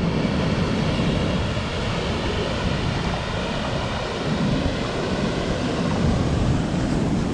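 Steady rushing of water from a waterfall and its river.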